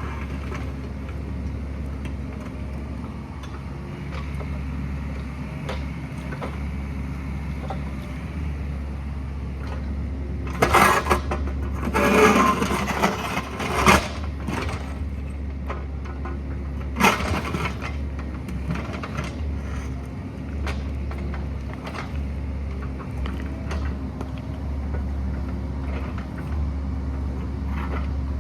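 Excavator engine running steadily. A few loud scraping, knocking bursts come about a third of the way in and again just past halfway, as the machine works rock.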